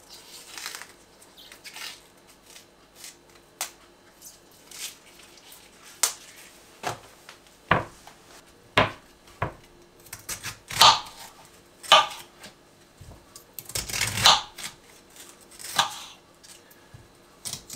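Outer leaves being pulled and snapped off a head of white cabbage by hand: irregular crisp crackling, rustling and crunching, with a few knocks as the cabbage is set down on a plastic cutting board.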